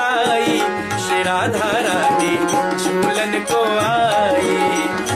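Hindi devotional bhajan music with tabla drumming under a melody line.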